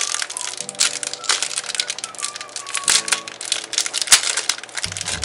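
Thin clear plastic packaging crinkling and rustling in quick irregular crackles as hands unwrap a small plastic fishing wobbler. Soft background music runs underneath, with low bass notes coming in near the end.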